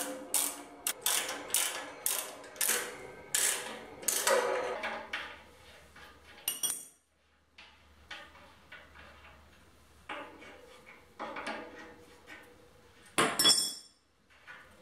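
Socket ratchet clicking in quick strokes, about three a second, as a bolt is turned. After a short pause, fainter rattling and scraping of threaded steel fittings being turned by hand on a steel tank, with one sharp metal clink near the end.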